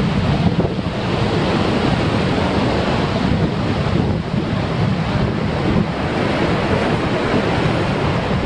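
Heavy surf breaking and foaming over a rocky shore, a steady rush of water, with wind buffeting the microphone.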